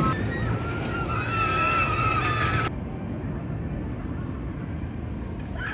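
Bolliger & Mabillard mega coaster train rumbling along its steel track, with high wavering tones over the rumble. The sound cuts off suddenly under three seconds in, leaving a quieter distant rumble and a few faint chirps near the end.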